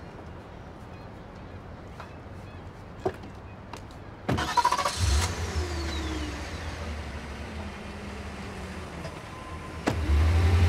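A car engine starting about four seconds in and then running with a steady low hum. Near the end a car door shuts with a sharp thud and the engine gets much louder as the car pulls away.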